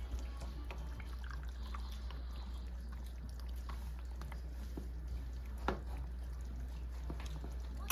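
Wooden spatula and metal spoon stirring a saucy pork stew in a nonstick wok: soft wet stirring with scattered light clicks and one sharper click a little over five seconds in, over a steady low hum.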